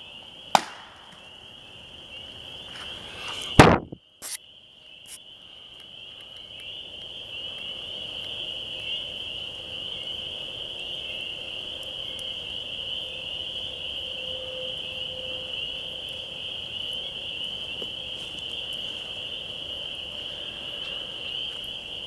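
Wood knock, a log struck hard against wood, giving one sharp crack about half a second in; a louder sharp thump follows about three and a half seconds in. Under them a steady high-pitched trill runs throughout.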